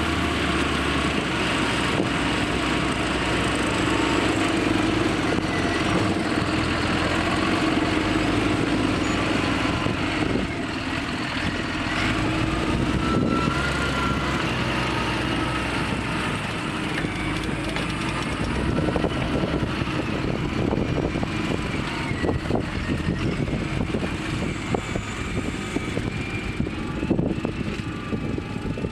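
CLAAS Arion 640 tractor's six-cylinder 6.8-litre turbodiesel running steadily while pulling a mounted five-furrow reversible plough, with scattered knocks and rattles more frequent in the second half.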